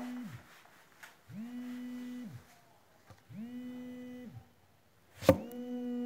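A smartphone buzzing on vibrate in pulses about a second long, roughly every two seconds, each buzz sliding up in pitch as the motor spins up and down as it stops. A sharp knock about five seconds in, then another buzz begins near the end.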